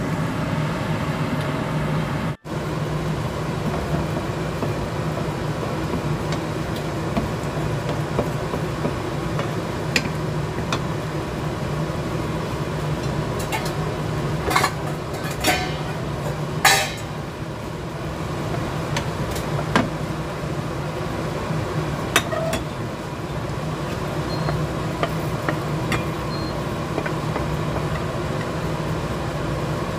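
Steady low hum, with scattered knocks and clinks of a wooden spatula against a nonstick frying pan, the loudest a little past the middle.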